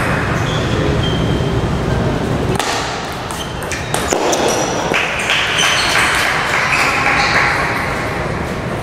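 Table tennis rally: the celluloid/plastic ball clicking off rubber paddles and bouncing on the table, sharp clicks in quick succession. A stretch of even noise runs from about five to seven seconds in.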